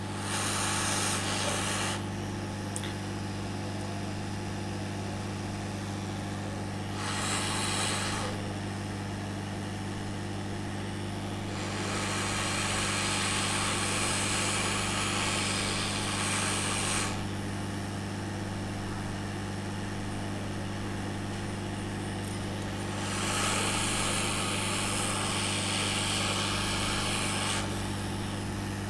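Hot air rework gun blowing onto a phone circuit board to reflow the solder balls of a CPU power IC: a steady hum under the hiss of the airflow. The hiss swells louder four times: briefly about a second in, again around seven seconds, for about five seconds from twelve seconds, and again from about twenty-three seconds.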